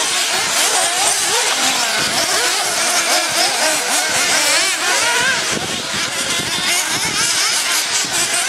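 Several 1:8 scale RC off-road buggies' small nitro engines, high-pitched and overlapping, revving up and down as they race through the corners.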